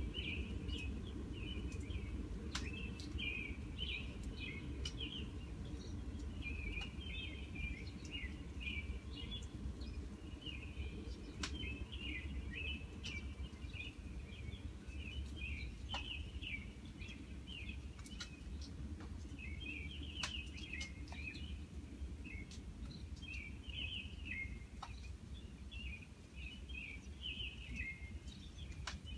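Small birds chirping and twittering almost without pause over a steady low rumble of distant trains. A few faint sharp clicks are scattered through it.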